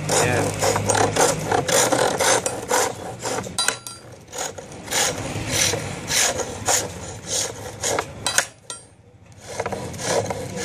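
Chisel cutting a spinning wooden spindle on a bow lathe: a rhythmic rasping scrape at about two strokes a second as the bow drives the work back and forth. It stops briefly near the end, then starts again.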